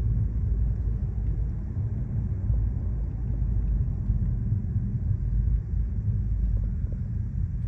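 Steady low rumble of road and engine noise inside the cabin of a moving Mercedes E 300 coupé, at an even level with no change in pitch.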